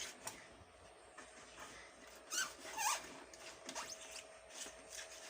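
Knife blade scraping and prying at softened rubber sealant on an LED floodlight housing: faint, scattered scrapes, with a short squeak about three seconds in.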